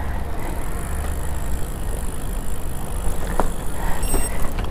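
Wind rumbling on the microphone and tyre noise from a bicycle being ridden along a road, steady throughout, with one sharp click about three and a half seconds in.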